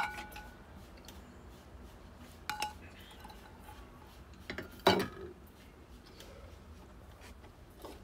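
Eating utensils clinking against dishes: a ringing clink at the start, a lighter clink about two and a half seconds in, and a louder knock about five seconds in.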